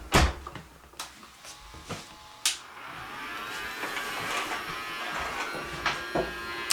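Small vacuum cleaner's electric motor: a few clicks and knocks, then about three seconds in the motor switches on and spins up into a steady buzzing whine that runs until near the end.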